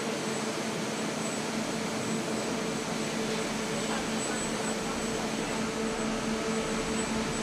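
Steady foundry machinery noise: an even hiss with a constant low hum.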